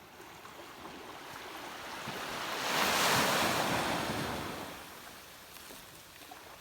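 A wave washing in on the water's edge: a rush of water that swells to its loudest about three seconds in, then fades away.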